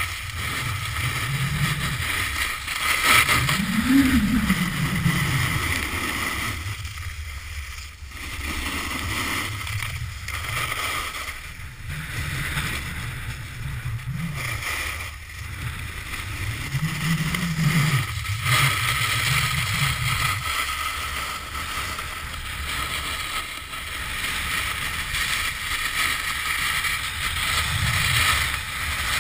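Snowboard sliding and carving on packed snow, a continuous scraping rumble that swells and falls with each turn, mixed with wind rushing over a pole-mounted GoPro's microphone.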